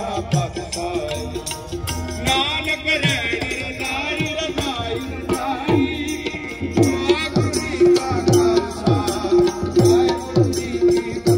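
Music with a hand-drum beat, its low strokes dropping in pitch and coming about twice a second in the second half, under a sustained melody line.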